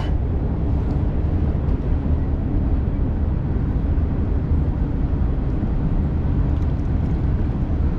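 Wind buffeting the microphone: a steady low rumble with no breaks.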